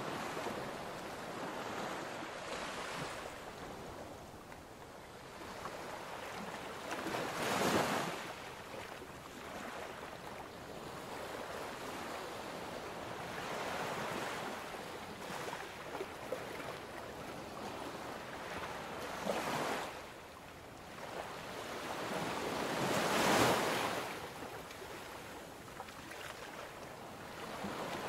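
Ocean waves washing in: a steady wash of surf with three bigger waves that swell up and fade away.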